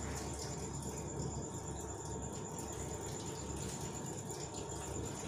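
Faint strokes and taps of a marker on a whiteboard as numbers are written, over steady room noise with a low hum and a thin, steady high whine.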